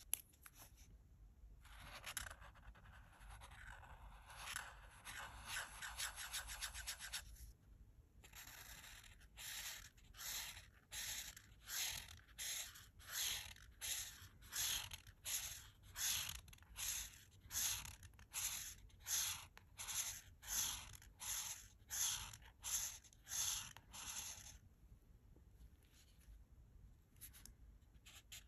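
Art marker tip scratching across colouring-book paper: a few seconds of continuous quick scribbling, then steady back-and-forth strokes about two a second, going lighter near the end.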